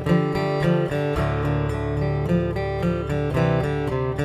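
Acoustic guitar strumming chords in a steady rhythm as a song's instrumental intro, with a low bass note ringing underneath from about a second in.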